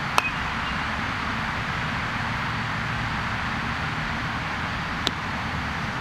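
A sharp crack of a bat hitting a baseball just after the start, with a brief ringing ping, over a steady outdoor hiss. A fainter click comes about five seconds in.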